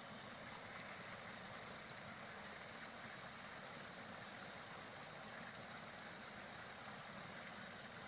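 Small waterfall spilling over rocks into a pool: a steady, even splashing rush of water.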